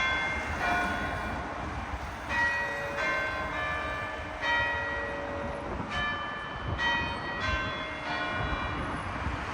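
Church bells ringing: a quick succession of strokes from several bells of different pitches, each one ringing on, with a low rumble of background noise underneath.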